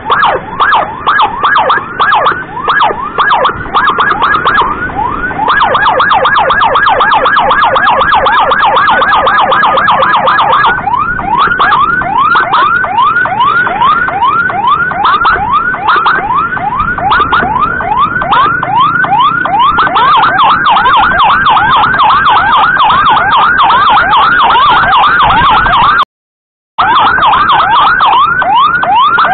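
Emergency siren yelping in quick rising sweeps, about three a second. It switches to a faster, blurred warble for about five seconds early on, then goes back to the yelp. The sound cuts out completely for under a second near the end.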